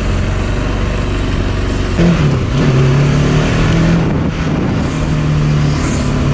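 Motorcycle engine running on the move, with wind rumble on the microphone. About two seconds in the engine note drops, then holds steady.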